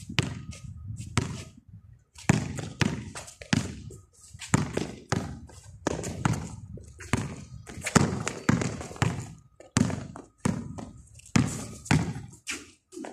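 Basketball dribbled on a concrete court: a steady run of bounces, about two a second, pausing briefly now and then.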